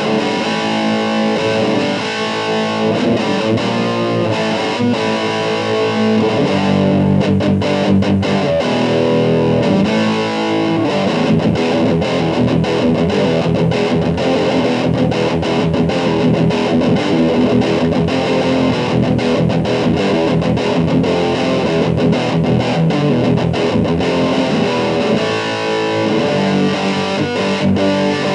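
Distorted electric guitar music played through a mini Marshall JCM800 amp into a small combo cabinet of RFT L2403 12.5 cm TV speakers, with sharp hits joining in from about seven seconds on.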